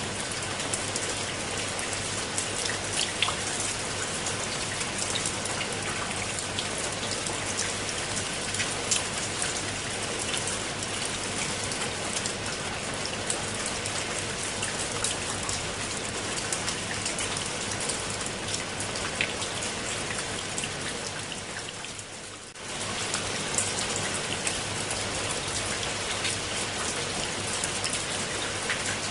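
Steady rain falling on wet stone steps and leafy plants: a dense hiss with many sharp ticks of single drops. The level sags briefly about three-quarters of the way through, then comes straight back.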